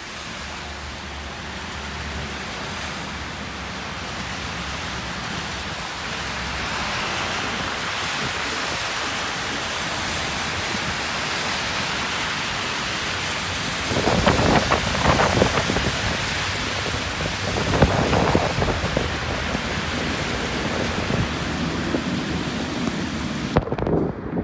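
Tyres of passing cars hissing through wet slush on a city street under falling rain and wet snow, a steady wash of noise. A little past halfway it grows louder and rougher, with ragged rumbling swells.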